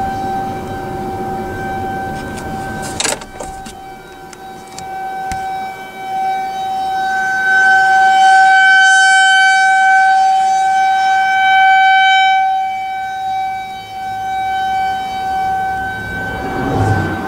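Nuclear power plant outdoor warning siren sounding a steady single-pitch tone for a siren test. It swells louder for several seconds in the middle, then fades back. There is a sharp knock about three seconds in.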